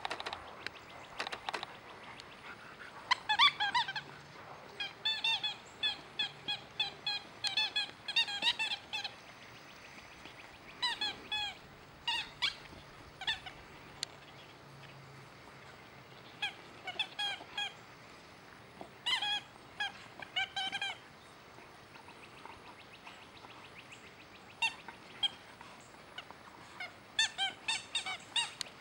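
Squeaky, honking noise made by a dog: about a dozen bursts of quick repeated notes, several a second, with pauses between bursts.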